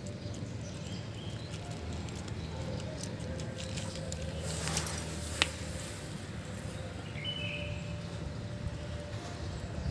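Cats crunching dry kibble: a run of small crisp clicks over a steady low background rumble, with a short rustle and a single sharp click about five seconds in.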